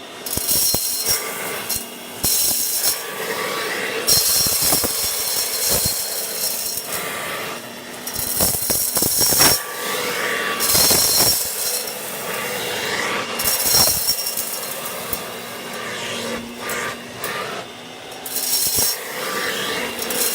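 1940s Hoover Dustette hand vacuum cleaner running with a steady motor whine while its nozzle sucks up pudding rice from the floor. The airflow hiss swells and drops back repeatedly as the nozzle is moved, with scattered clicks of rice grains being drawn in.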